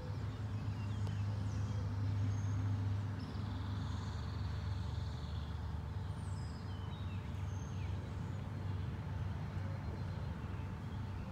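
A steady low mechanical hum, strongest in the first three seconds, with faint high chirps of small birds scattered through it.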